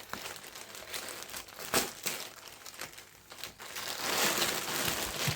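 Parcel packaging being opened by hand: crinkling and rustling, with scattered clicks and one sharp crack under two seconds in, then steadier crinkling from about four seconds in.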